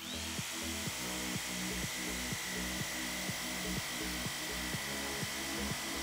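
Makita jigsaw starting up and running, its blade cutting into an acrylic sheet, with a steady high whine. Background music with a regular beat plays underneath.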